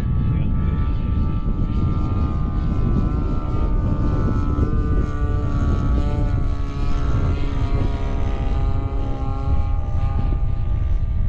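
Radio-controlled model airplane flying overhead, its propeller and motor whine holding several steady pitches that drift up and down as it passes. Heavy wind rumble on the microphone underneath.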